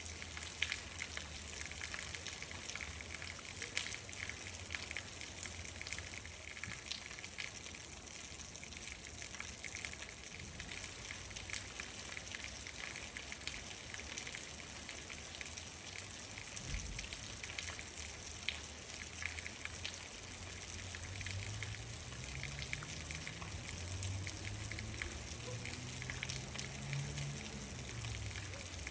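Steady rain falling: an even hiss dotted with many separate drops ticking close by. In the last third a low drone with a slowly shifting pitch comes in underneath the rain.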